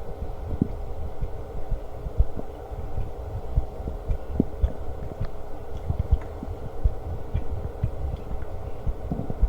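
Stomach growling: irregular low gurgles and short pops, a few every second, over a steady hum.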